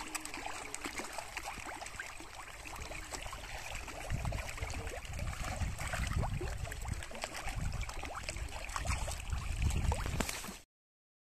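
Pond water slopping and splashing, with many small pops and splashes at the surface as tilapia take floating feed pellets. A low rumble joins about four seconds in, and the sound cuts off suddenly near the end.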